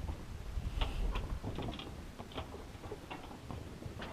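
Scattered light clicks and ticks at irregular spacing over a low rumble, the small knocks of gear aboard a slowly sailing boat.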